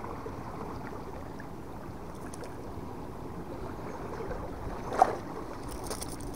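Steady wash of sea and wind noise, with one sharp knock about five seconds in.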